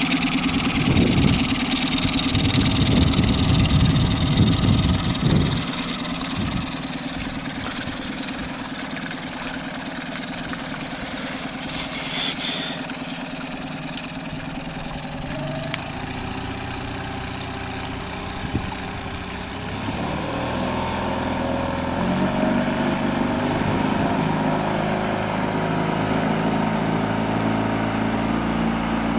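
Outboard motor of a small fishing boat running as the boat pulls away, loud for the first five seconds and then fainter and steady as it moves off; about twenty seconds in the engine note rises and grows a little louder.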